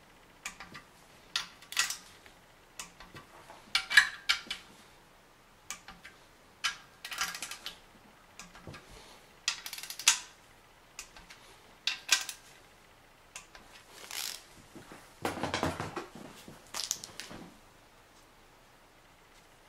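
Ratcheting torque wrench tightening small M6 bolts on the bottom end of a BMW M52 engine block to about 10 Nm, one bolt after another: short runs of ratchet clicks and sharp metallic clicks, with a longer, duller clatter about fifteen seconds in.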